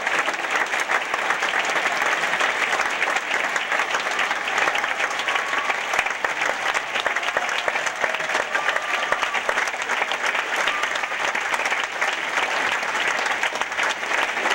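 Large theatre audience applauding at a curtain call: dense, steady clapping that keeps up without a break.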